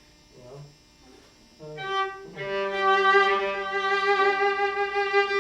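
Viola bowed after a quiet pause: a short note, then a long sustained note with a lower note held beneath it as a double stop.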